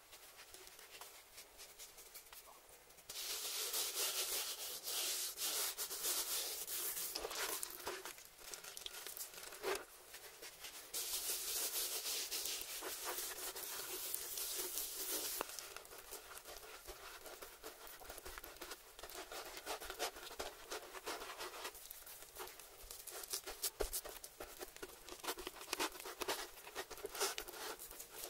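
Hands sprinkling a dry spice rub onto a raw steak and rubbing it into the meat, close up: a gritty, crackling hiss of granules and skin on wet meat, louder in two stretches of a few seconds.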